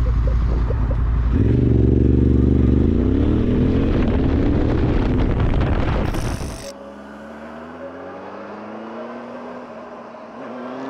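Motorcycle engine accelerating away from a standstill, its pitch climbing as it pulls. About six seconds in comes a short hiss, then a different, quieter motorcycle engine accelerating with rising pitch.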